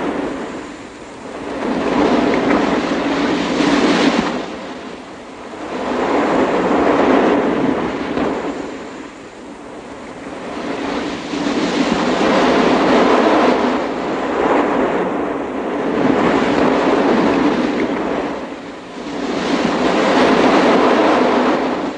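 Sea surf breaking on a sandy beach: a rushing wash of water that swells and dies away every few seconds, wave after wave.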